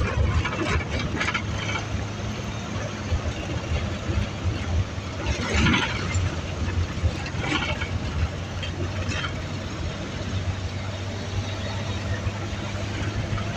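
A motor vehicle's engine running steadily with a low drone, with a few short bursts of higher sound over it about five, seven and nine seconds in.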